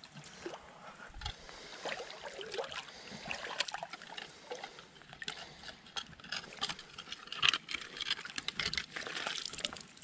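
Shallow creek water splashing and trickling in small, irregular splashes as the streambed is stirred up with a dip net.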